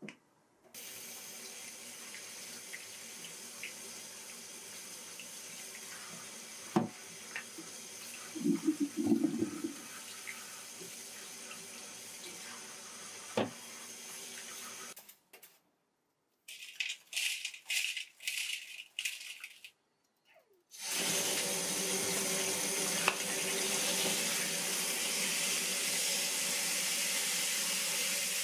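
Kitchen tap water running into a steel sink over live snails in a stainless colander, with a few sharp clicks and knocks of shells as hands rub them. After a short break and some brief scraping sounds, the tap runs louder and steadily into a plastic bowl of snails.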